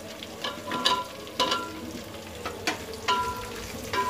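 Raw potato chunks dropping into hot oil in a metal pot and being stirred in with a wooden spoon: the oil sizzles steadily, and about half a dozen knocks make the pot ring briefly.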